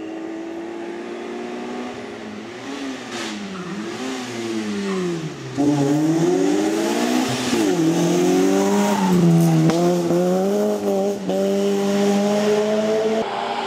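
Peugeot 106 S16 rally car's four-cylinder petrol engine under hard driving. The revs fall and dip as it slows for a tyre-barrier chicane. About five seconds in it gets much louder and climbs again through several quick upshifts as the car comes close.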